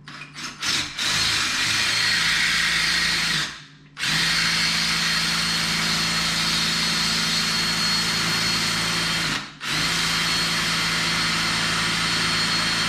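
Power drill running at a steady speed in three long runs with brief stops between, after a few quick trigger blips, worked against a stripped screw.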